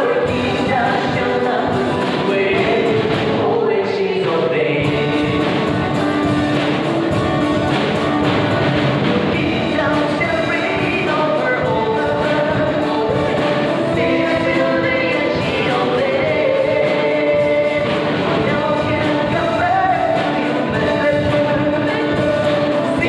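A congregation singing a worship song together, led by singers at microphones, with acoustic guitar and keyboard accompaniment. It goes on steadily without a break.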